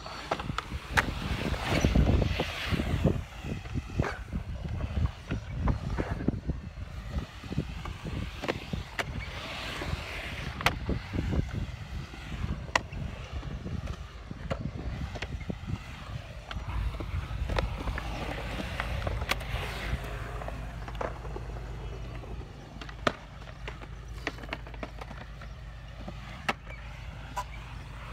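Skateboard wheels rolling over a concrete skate bowl, a continuous rough rumble that swells and fades as the skater carves, with sharp knocks scattered throughout.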